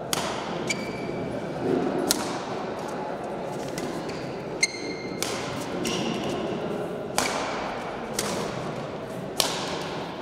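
Badminton rally: rackets striking the shuttlecock about seven times, one to two seconds apart, each hit ringing briefly in the hall. Short high squeaks of shoes on the court come between hits.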